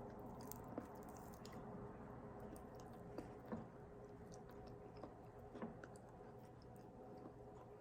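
Faint chewing and mouth sounds of someone eating, with a few short soft clicks spread through, over a faint steady hum.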